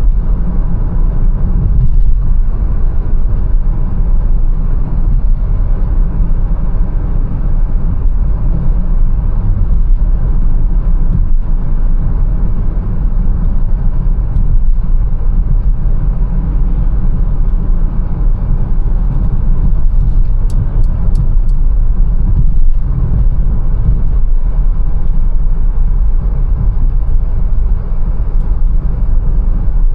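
Mercedes-Benz A180 driving: a steady, loud, deep rumble of engine and road noise with no breaks. A few faint high ticks sound briefly about two-thirds of the way in.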